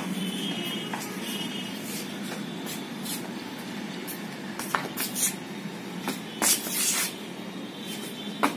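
Steady low background rumble, with a few scattered scuffs and slaps of footsteps in flip-flops on concrete; the loudest is a short hissing scuff near the end.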